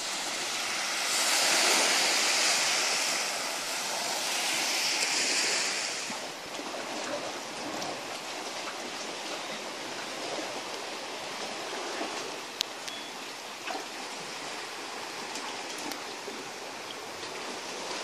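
Gentle sea waves washing on a sandy shore: a louder rush of surf for the first few seconds, easing to a steady wash of water. One sharp click about twelve and a half seconds in.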